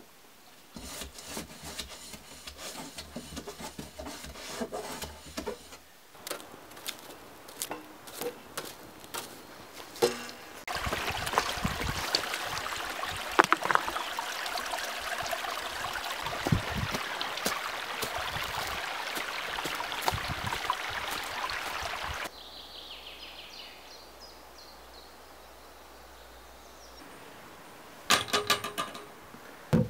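Mountain stream running over rocks, a steady rush for about eleven seconds in the middle. Before it come scattered knocks and scrapes of handling, and near the end a brief clatter as a wire mesh grid is set down on a wooden bench.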